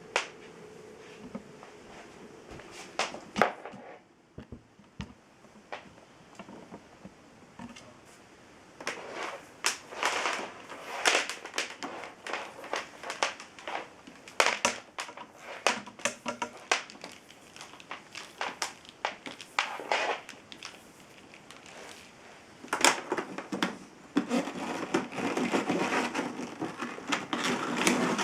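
Handling noises from a vacuum cleaner with its motor off: irregular clicks, knocks and crinkling rustles, coming in clusters with short quiet gaps.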